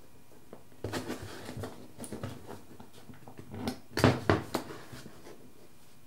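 Fingers handling thin insulated wire and small pieces of heat-shrink tubing close to the microphone: scattered rustles, scrapes and light clicks, with the loudest handling noise about four seconds in.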